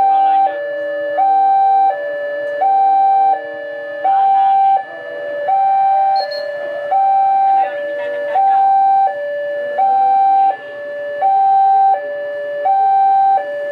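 Railway level crossing's electronic warning alarm sounding an unbroken high-low two-tone pattern, each tone lasting about two-thirds of a second and repeating evenly, warning of an approaching train.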